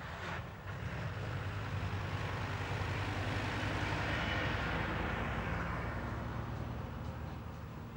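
Sport motorcycle engine passing by, growing louder to a peak about four seconds in and then fading away.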